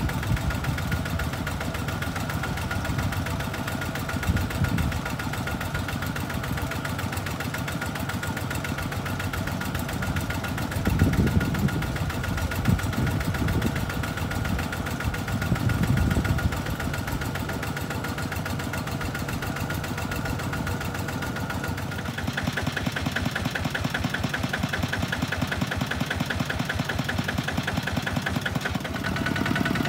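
Walking tractor's single-cylinder diesel engine running steadily while pulling a loaded trailer. Near the two-thirds mark it becomes closer and sharper, a fast, even pulsing chug.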